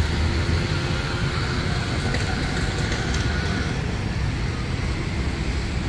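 Diesel locomotive engines running, a steady low rumble, as a light locomotive draws slowly toward the crossing past a standing freight train.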